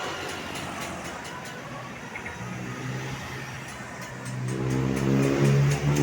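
A tour bus's engine droning steadily at a low pitch, getting louder over the last couple of seconds as the bus comes close.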